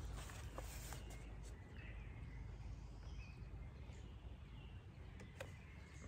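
Faint outdoor ambience: a steady low rumble, a few soft clicks and faint bird calls.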